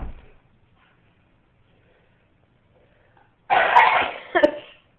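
A baby coughing: a harsh cough about three and a half seconds in, followed closely by a second shorter one. A low thump comes right at the start.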